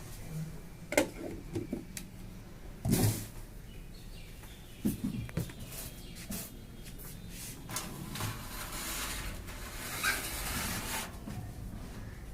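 Handling noises from unpacking a computer cabinet: scattered clicks and knocks with bouts of rustling, the loudest about three seconds in and again around ten seconds.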